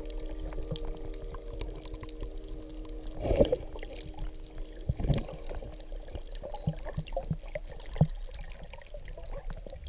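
Underwater bubbling and gurgling of a scuba diver's exhaled breath heard through a camera housing, with two louder bubble surges about three and five seconds in and small pops after. A steady low tone fades out about two-thirds of the way through.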